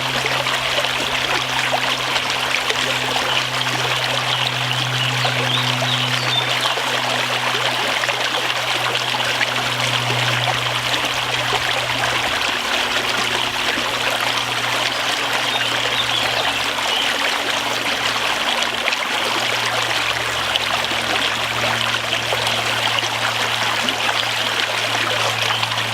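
A small stream babbling and splashing steadily over stones, with a steady low hum underneath.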